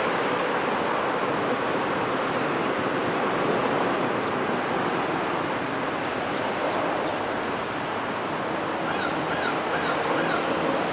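Steady rush of road traffic passing on a country road. A bird chirps a few times briefly about six seconds in, and near the end a bird gives four quick calls in a row.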